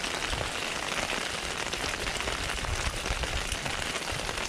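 Heavy rain falling steadily in a downpour, a dense patter of drops.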